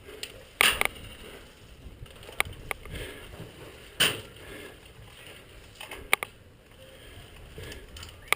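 Scattered, irregular sharp knocks and clicks over faint background noise, the loudest about half a second in and about four seconds in.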